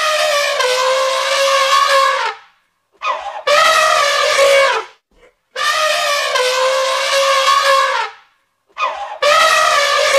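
Elephant trumpeting: four long, brassy calls of about one and a half to two and a half seconds each, with short gaps between.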